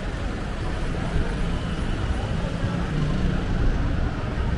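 Steady city street noise with a low traffic rumble.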